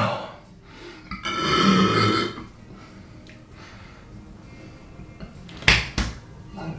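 A man's loud belch about a second in, lasting just over a second, low and pitched. Near the end come two sharp clicks, about a third of a second apart.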